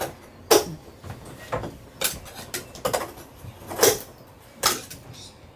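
About seven sharp knocks, irregularly spaced, as an overhead boat window panel is struck and pushed from below to break it free of its old caulk bedding.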